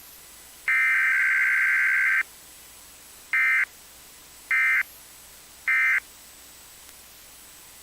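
Emergency Alert System SAME data tones on a station's relay of a test: one long burst of digital header data, then three short bursts about a second apart, the end-of-message code that closes the alert.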